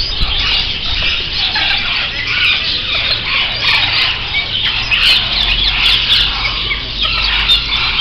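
A large flock of caged budgerigars chattering and chirping all at once, a dense, continuous din of short overlapping calls, over a steady low hum.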